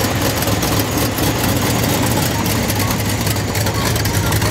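Supercharged V8 of a classic Ford Mustang idling with a steady low note as the car rolls slowly past.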